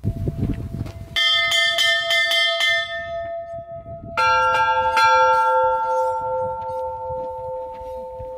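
Hanging metal temple bells being rung. First one bell is struck rapidly, about four strokes a second, for about two seconds; then a second, lower-pitched bell is struck a few times and left ringing, slowly fading.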